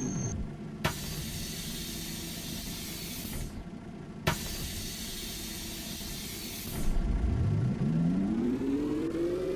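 City bus at a stop: its drive whine falls away, then two sharp clunks a few seconds apart, each followed by a long hiss of air as the pneumatic doors work, and near the end the whine rises steadily as the bus pulls away.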